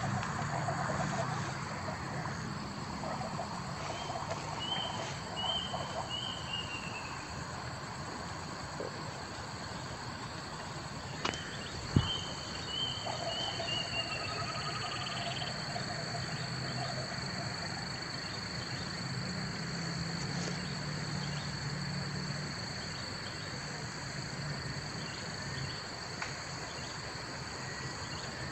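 A steady high-pitched insect drone with two runs of short repeated chirping calls and a single sharp click about halfway through.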